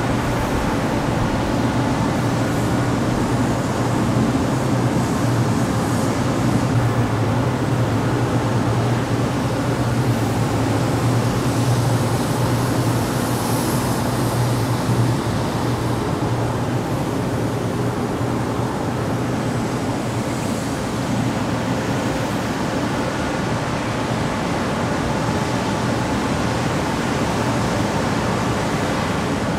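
Industrial exhaust fan running steadily: a broad rush of moving air over a low hum, the hum stronger in the first half.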